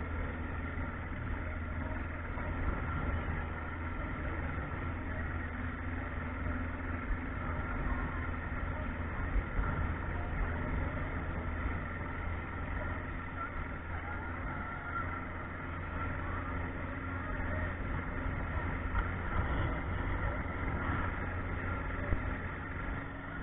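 Boat motor running steadily while the boat is under way, a constant engine hum over a low rumble.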